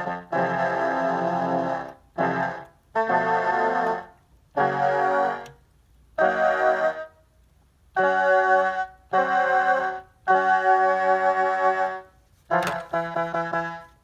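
Casio SK-1 sampling keyboard playing short phrases of notes with a piano- or organ-like preset voice, each phrase stopping sharply, with brief pauses between.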